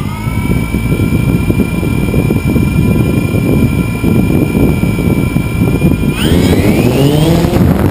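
DJI Phantom 2 quadcopter's electric motors and propellers heard from the drone's own camera mount: a steady multi-tone whine after spin-up, over heavy rushing propeller downwash on the microphone. About six seconds in the whine climbs sharply in pitch as the motors throttle up for takeoff.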